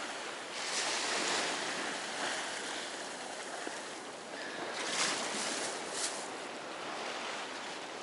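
Small Black Sea waves washing up on the shore in a steady rush, with two short louder rushes about five and six seconds in.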